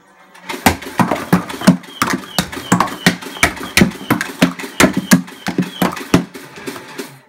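Nerf Mega Mastodon motorized blaster firing full-auto: its flywheel motor runs with a quick string of sharp dart shots, about three a second, for some five and a half seconds, then stops.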